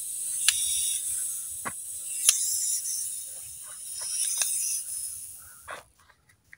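Steady high insect chirring in the background, with a handful of sharp clicks and taps as plastic toy animals are handled and set down on dirt; the sound cuts off shortly before the end.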